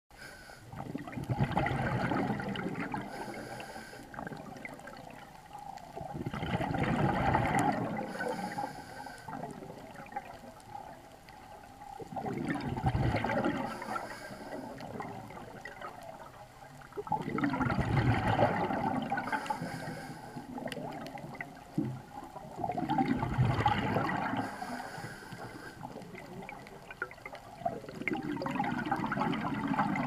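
A scuba diver breathing through a regulator underwater: each exhaled breath is a gurgling burst of bubbles lasting about two seconds. There are six bursts, about every five and a half seconds, with a fainter high hiss between them as the diver breathes in.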